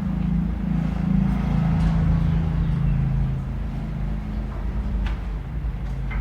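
Small generator engine running steadily, its pitch wavering slightly in the first few seconds, with a couple of light clicks near the end.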